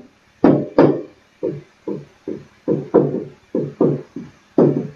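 Pen strokes on an interactive whiteboard while writing by hand: a quick, uneven series of about a dozen dull knocks, each sudden and fading fast.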